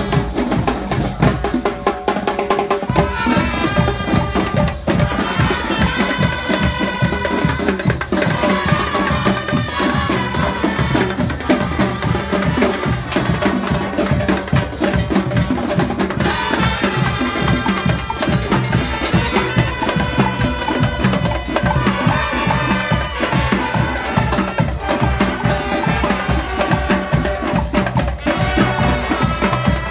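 School marching band playing in the street. Snare and bass drums keep a steady beat throughout, while brass (trumpets and trombones) and lyre glockenspiels play a melody that drops out for a few seconds at times, leaving only the drums.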